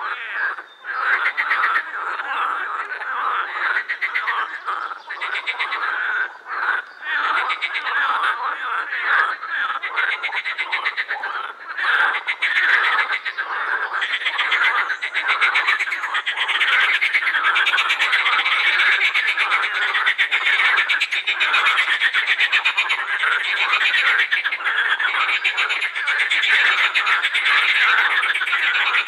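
Chorus of edible frogs croaking, many males at once with their paired white vocal sacs puffed out, the calls made of quick pulses that overlap. The chorus comes in bouts with short gaps at first, then merges into one unbroken din about halfway through.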